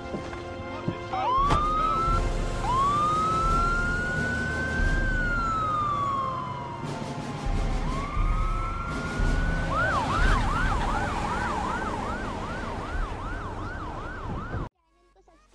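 Police sirens wailing, rising and falling slowly in pitch. About ten seconds in they switch to a fast yelp, about three sweeps a second, then cut off suddenly near the end.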